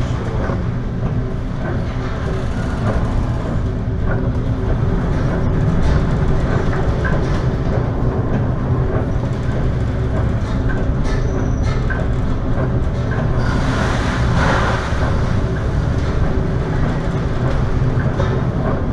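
Ship's engine droning steadily, heard from inside the vessel, with scattered rattles. A brief rush of hissing noise rises and falls about three-quarters of the way through.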